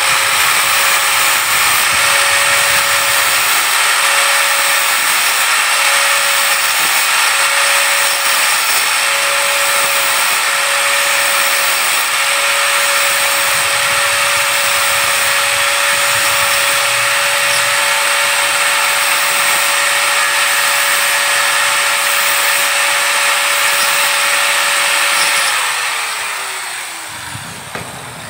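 Electric angle grinder running with a steady whine while its disc sands the end of a plastic pipe. About 25 seconds in it is switched off and winds down, the whine falling in pitch.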